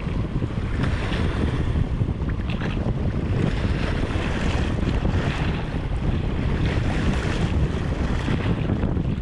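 Wind buffeting the microphone in a constant low rumble, over sea waves washing against shore rocks, a hiss that swells and fades every second or two.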